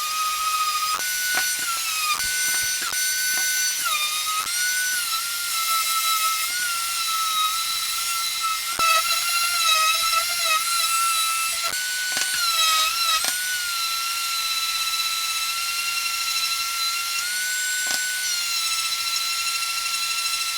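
High-pitched whine of a small high-speed power tool sanding or polishing wood. Its pitch dips repeatedly as it bites under load and recovers, with a few sharp clicks along the way. It stops abruptly at the end.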